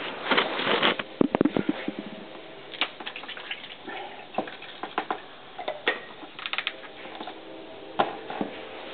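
Clattering knocks and clicks as a camcorder is handled and set down on a shop floor, followed by scattered light ticks and a faint patter while brake fluid is bled from a truck's brake lines with a homemade air-operated bleeder.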